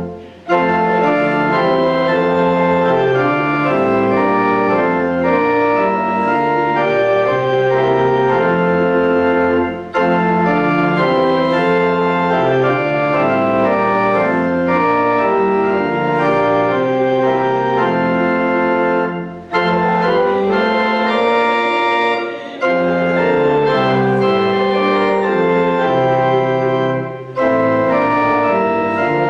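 Church organ playing a hymn in held chords, with brief breaks between phrases.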